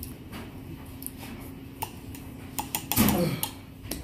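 Wet eating sounds from a person slurping and chewing spicy fire noodles: scattered small clicks and smacks. About three seconds in comes a loud vocal cry that falls in pitch, a reaction to the heat.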